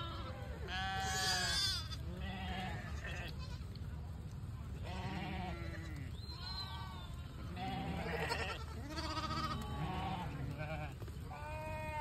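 A herd of goats bleating again and again, one call after another and sometimes overlapping, over a steady low rumble.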